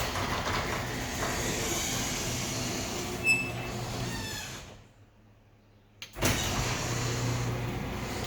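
Legacy garage door opener running, a steady motor hum as the door travels, with a brief high squeak about three seconds in. The sound fades out for about a second past the middle, then returns abruptly at the same steady level.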